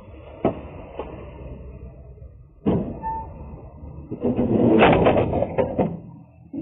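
Cardboard boxes being unloaded from a cargo truck: a couple of light knocks, a heavy thud a little under three seconds in, then a loud stretch of scraping and knocking near the end, over a steady low rumble.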